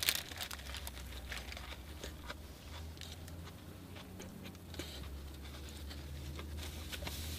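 A bite into a crisp lettuce-wrapped chicken burger, with a crackle as it goes in, then chewing with scattered small crunches and rustles of the paper wrapper, over a low steady hum.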